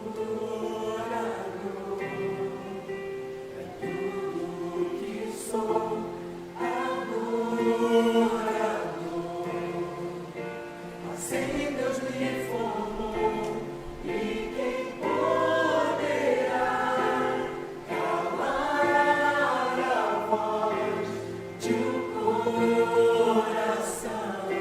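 A mixed choir singing a hymn in several voice parts, in phrases that swell and ease.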